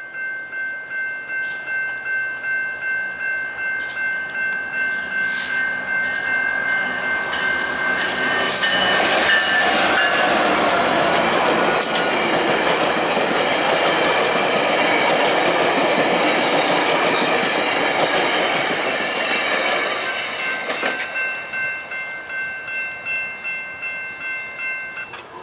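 Level-crossing warning bell ringing in a steady pulsing rhythm as a GO Transit commuter train, led by an MP40PH-3C diesel-electric locomotive, passes over the crossing. The locomotive and its bilevel coaches rumble and clatter over the rails, drowning the bell for about twelve seconds in the middle, and the bell is heard again as the train moves away.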